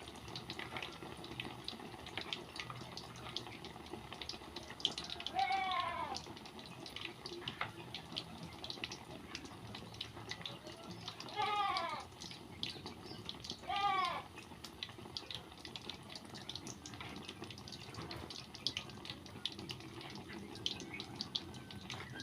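Flour-coated tempe frying in hot oil, a steady sizzle with many small crackles. An animal calls three times over it, short calls falling in pitch.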